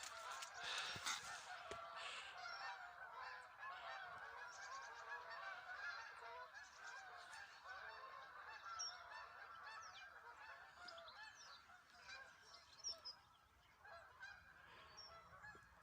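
A flock of Canada geese honking in flight, a dense, faint chorus of overlapping calls that thins out and fades near the end.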